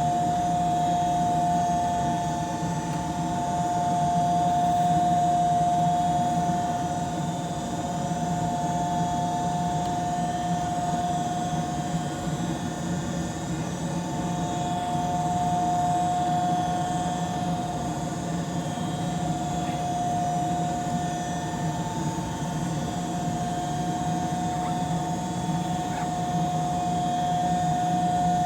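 York Affinity 9C series condensing gas furnace running: a steady rushing with a steady high whine that does not change.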